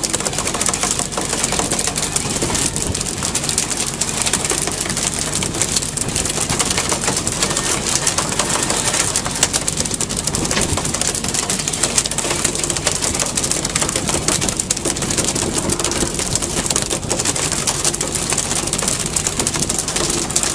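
Fishing boat at sea: steady engine noise mixed with wind and water rushing, with scattered light knocks.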